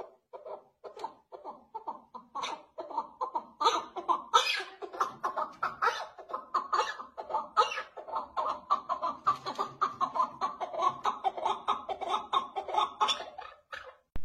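A chukar partridge (keklik) calling: a long run of rapid, cackling chuck notes, several a second. The call builds up about four seconds in and goes on until shortly before the end.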